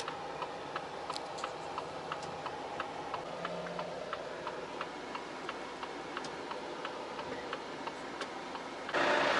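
Truck cab's flasher relay clicking steadily, about three clicks a second, over the low hum of the cab. About nine seconds in, a louder steady engine and road noise comes up.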